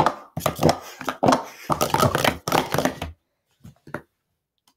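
Plastic Speed Stacks sport-stacking cups clacking against each other as they are handled and stacked: a quick, rapid run of clacks for about three seconds, then a couple of lighter clacks.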